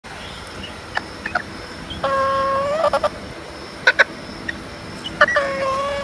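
A rooster crowing twice. Each crow has a few short notes and a long held note that breaks off at the end. Two short sharp sounds fall between the crows.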